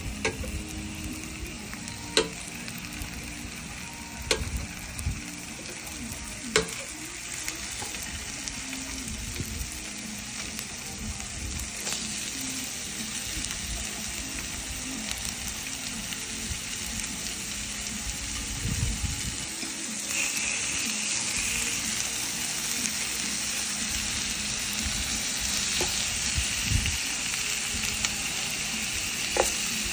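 Shrimp, beef and salmon sizzling in butter on a hot tabletop electric grill pan, a steady frying hiss that grows louder about two-thirds of the way through. A few sharp clicks stand out over it.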